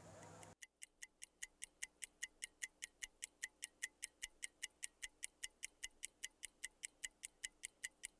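Countdown timer sound effect: steady clock-like ticking, about four ticks a second, fading in over the first second or so.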